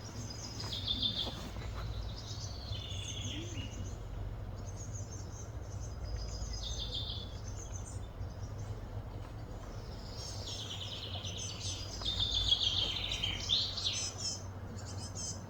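Small birds chirping and trilling in short repeated phrases, busiest about two-thirds of the way through, over a steady low background hum.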